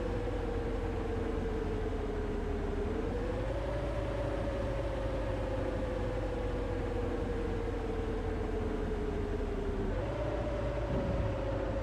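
A bus running, heard from on board: a steady low rumble with a whine that slowly sinks in pitch, climbs back about three seconds in, and jumps up suddenly about ten seconds in.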